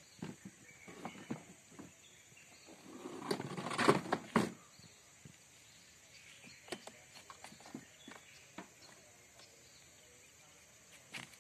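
Plastic chair shifted on wooden jetty planks: a loud scraping rush with knocks about three to four and a half seconds in, amid scattered light knocks and taps.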